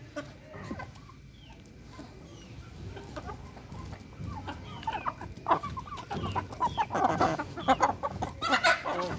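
Aseel chickens clucking and calling, many short overlapping calls that start faint and grow louder and busier from about five seconds in.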